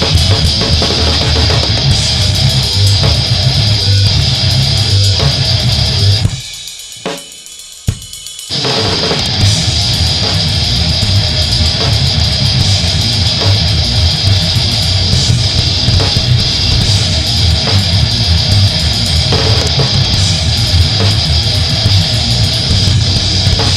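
Heavy metal band recording with pounding drums and distorted guitars. The music breaks off almost to nothing about six seconds in, with a single hit during the gap, and comes back in full about two seconds later.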